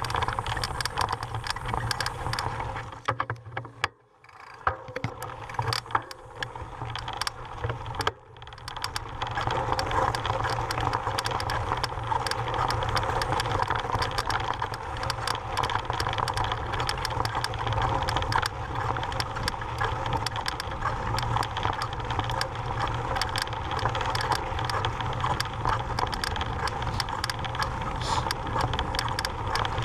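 Mountain bike rattling and its tyres crunching over loose rock and gravel, heard from a camera mounted on the rider. The noise is a dense run of clicks and clatter over a low rumble, dropping away briefly about four seconds in and again near eight seconds.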